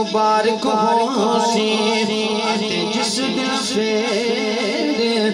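A man singing a naat, a devotional song in praise of the Prophet, amplified through a public-address sound system. The melodic lines are long-held and wavering.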